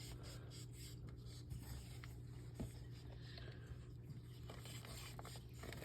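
Faint scratching and rubbing with a few small, soft clicks, over a low steady hum.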